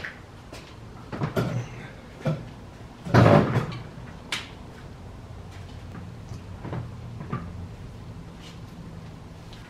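A heavy all-wheel-drive transmission case being set down on a plastic folding table: a few knocks and clunks, the loudest a little over three seconds in, then lighter knocks as it is shifted on the tabletop.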